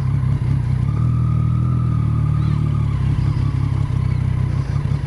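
Triumph motorcycle fitted with an aftermarket Arrow exhaust can, riding at a steady pace: a steady low engine and exhaust drone mixed with road and wind noise.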